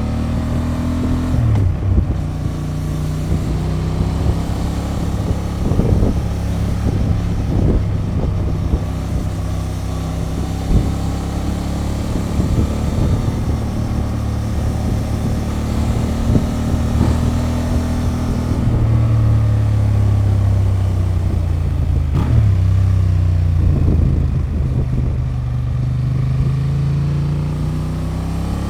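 Honda XL750 Transalp's 755 cc parallel-twin through its stock exhaust, ridden under way: the engine note climbs under acceleration and drops back several times as it changes gear, with a few short knocks along the way.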